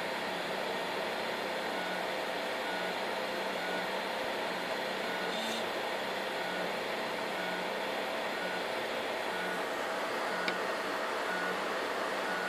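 3D printer printing: a steady hiss with short stepper-motor whines that repeat roughly once a second as the print head moves, and a single click about ten seconds in.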